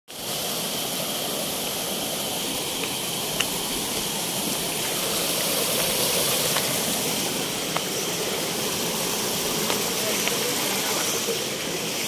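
Water rushing steadily as a small stream cascades between boulders into a pool, with a few faint ticks.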